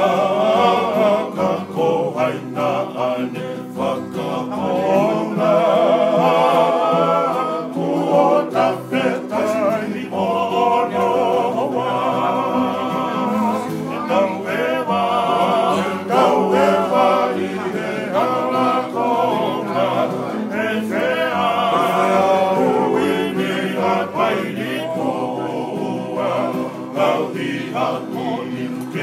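Men singing a song together in harmony, accompanied by strummed acoustic guitars.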